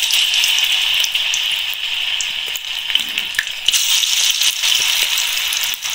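Ash gourd pith pakora batter deep-frying in hot oil in a kadai: a steady sizzling hiss with scattered small pops and crackles.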